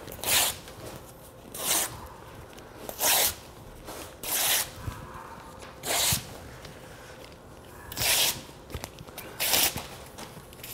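Newspaper torn by hand into strips: about seven short rips, one to two seconds apart.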